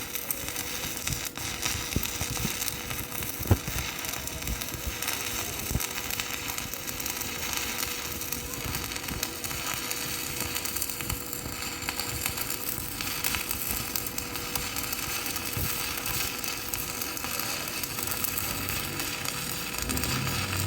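Stick (shielded metal arc) welding with a 3.2 mm E6013 rod at 80 amps: the arc crackles and sizzles steadily, full of sharp pops, as the bead is run.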